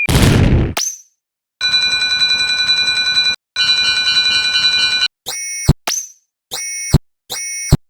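Electronic alarm-like cartoon sound effects. A short noisy burst comes first, then two steady pulsing chords of about two seconds each. Three shorter tones follow, each cut off by a sharp thump.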